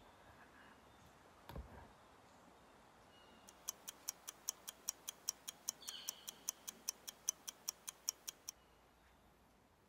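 Clock ticking quickly and evenly, about five ticks a second, for around five seconds starting a few seconds in, used as the time-passing effect for a 24-hour soak. A soft low thump comes earlier.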